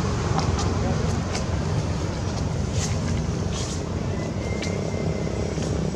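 Steady low outdoor rumble, with a few faint short high chirps scattered through it and a brief thin whistle-like tone about four and a half seconds in.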